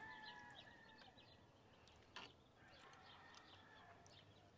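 Near silence with faint bird chirps in the background and a single faint click about two seconds in.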